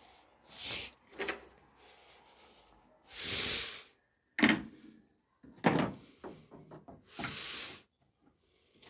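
Wooden cabinet doors being handled: several sharp knocks of wood on wood, the loudest about halfway through, with a few clicks and a couple of brief scraping sounds.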